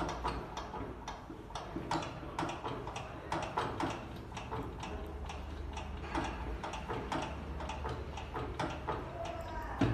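A manual delivery bed's height-adjustment mechanism being worked, giving a run of mechanical clicks at roughly one to two a second as the tabletop rises on its column.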